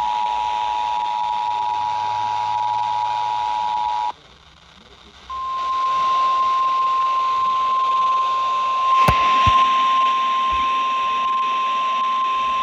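Emergency Alert System attention signal: the steady two-tone alert sounds until about four seconds in, then after a second of hiss the single-pitch 1050 Hz NOAA Weather Radio warning alarm tone sounds over radio static, with one sharp click partway through.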